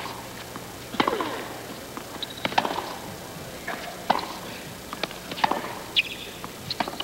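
A tennis rally: sharp pops of the ball struck back and forth by rackets, about every second and a half.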